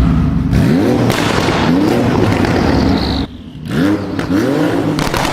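Performance car's engine being revved in a series of quick blips, each rising and falling in pitch, with sharp exhaust pops and crackles from the tailpipes between them. There is a brief lull a little past three seconds in.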